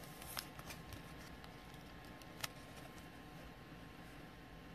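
Faint handling of a baseball card and a rigid clear-plastic top loader as the card is slid into it, with a couple of light clicks, one about half a second in and one a little past the middle.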